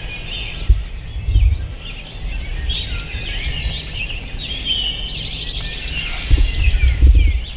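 Several songbirds singing over one another in a spring morning chorus, with two fast trills of rapidly repeated notes in the second half. Low rumbling bursts on the microphone come about a second in and again near the end.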